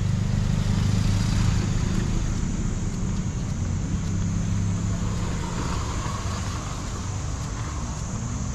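Road traffic: a motor vehicle's engine running close by, a steady low hum that fades after about five seconds, over general street noise.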